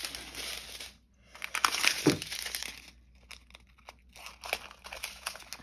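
Small plastic bags of diamond-painting drills crinkling and rustling as a strip of them is cut apart with scissors. The loudest burst of rustling comes about two seconds in, followed by scattered light clicks and snips.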